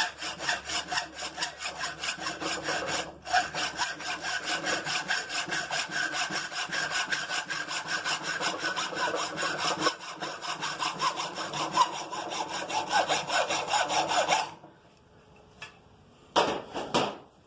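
Hand saw cutting through an aluminium bar in quick, even back-and-forth strokes, with a brief pause about three seconds in. The sawing stops a few seconds before the end, followed by a short loud clatter.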